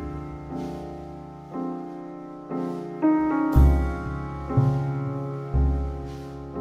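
Background piano music: slow sustained chords with deep bass notes struck about once a second.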